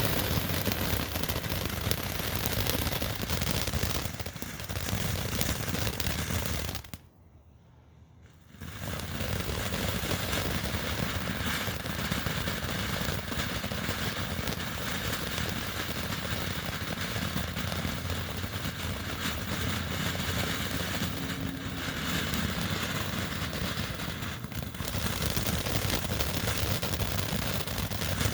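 Consumer firework fountain spraying sparks with a steady hiss and crackle. It stops briefly about seven seconds in, then starts again for its next effect, with a few shorter dips later on.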